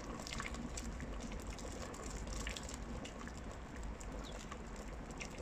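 Wort boiling in an electric urn used as a brew kettle: a steady low bubbling with faint scattered pops.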